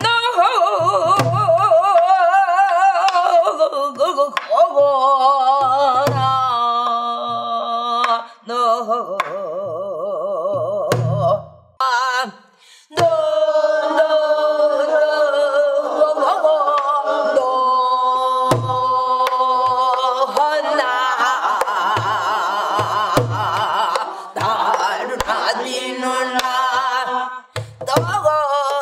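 A woman singing Korean gueum, a wordless vocal melody, with heavy vibrato, accompanied by occasional low strokes on a pansori barrel drum (buk). The singing breaks off briefly about twelve seconds in.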